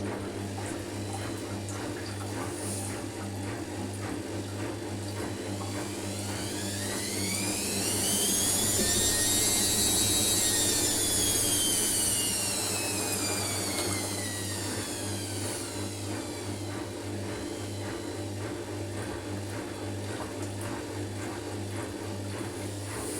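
Hotpoint Indesit washing machine running its rinse-and-spin program: a steady low hum throughout, with the motor's whine rising in pitch and getting louder as the drum speeds up, then falling back down over about ten seconds.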